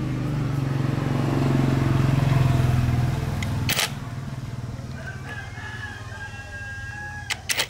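Small motorcycle engine running, growing louder for a couple of seconds and then dropping back about halfway through with a sharp knock. A rooster then crows one long call, followed by a few sharp clicks near the end.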